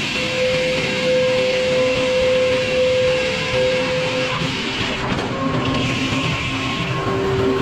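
Sawmill machinery running with a steady whine that drops in pitch about five seconds in.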